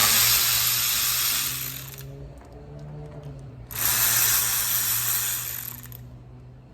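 Aerosol can of PB Blaster penetrating oil spraying in two hissing bursts of about two seconds each, over a low steady hum.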